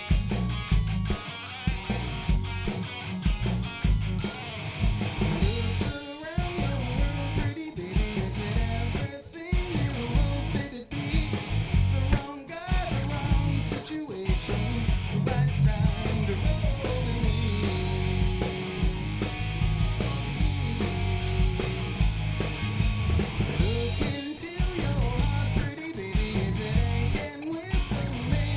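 Live rock band playing a passage with no words: electric guitar over bass and drums.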